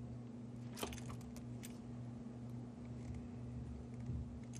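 Pliers clicking on a copper wire and the metal of a light switch as the wire end is bent into a hook for the terminal screw: one sharp click about a second in, a few lighter clicks just after, and a small knock near the end. A steady low hum runs underneath.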